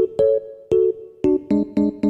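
Background music: piano-like keyboard chords struck one after another, each ringing away, coming quicker near the end.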